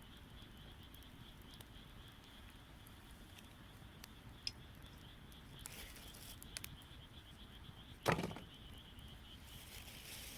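Wood campfire crackling: scattered small pops and ticks from burning wood, with one louder snap about eight seconds in.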